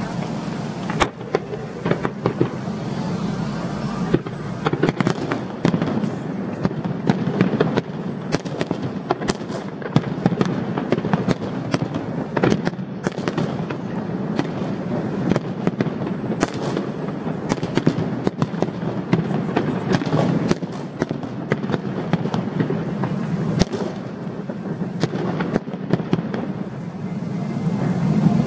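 Fireworks display: a fast, irregular run of sharp bangs and crackles from exploding shells, over a steady low rumble.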